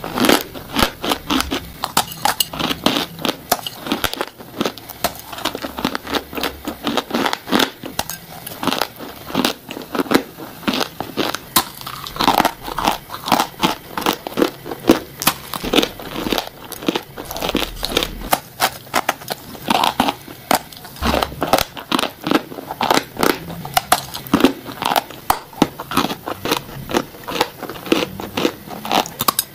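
Close-up bites into dry, powdery, crumbly blocks shaped like cookies, the mouthful crackling and crunching. The crunches come in quick succession, many a second, one bite after another.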